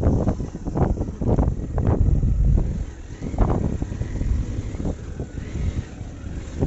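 Wind buffeting the phone microphone over a rumble of road traffic, loudest in the first few seconds and then easing.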